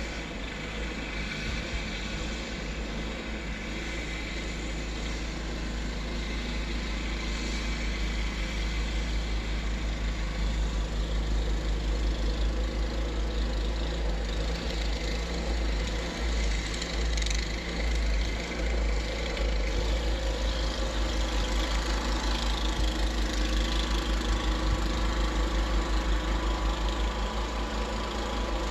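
An engine running steadily, getting gradually louder.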